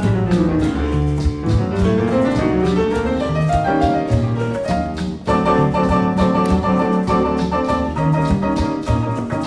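Background music: an upbeat jazzy tune with piano runs that sweep down and then back up, and a steady beat.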